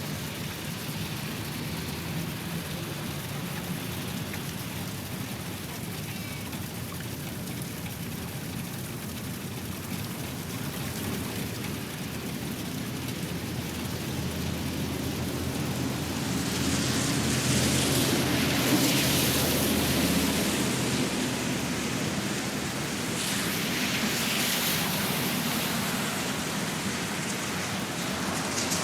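Steady rain falling on pavement. Two vehicles pass on the wet road in the second half, each a swell of tyre hiss over a low rumble.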